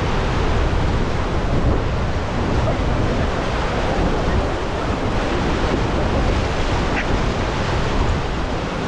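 Rushing whitewater of the Ganges rapids around a raft, a steady, unbroken noise, with wind buffeting the microphone.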